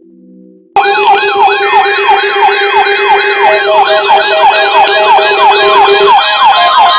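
Several electronic sirens in fast yelp mode, layered together, cutting in abruptly about a second in and repeating their rising sweeps a few times a second. A steady tone near 1 kHz joins near the end.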